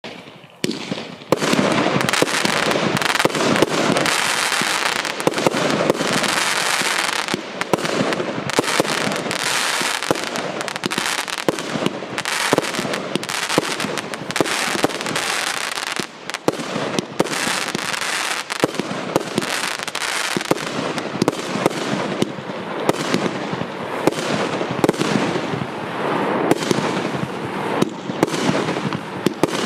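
Piromax Nitrogen PXB3910 consumer firework battery (47 shots, 25/30/48 mm calibre) firing a continuous barrage. From about a second in there are rapid sharp launch pops and aerial bursts over a steady hiss.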